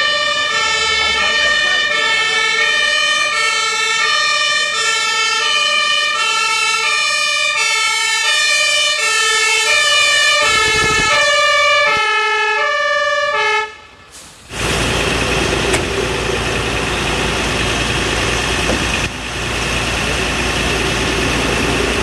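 Fire engine's two-tone siren (Martinshorn) sounding, its two notes alternating steadily. After an abrupt cut about two-thirds of the way in, a steady loud hiss of a fire hose spraying water onto a burning dumpster.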